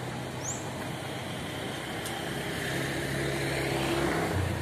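Outdoor traffic noise with a motor vehicle engine running close by; its hum grows louder to a peak just before the end, then drops to a lower pitch.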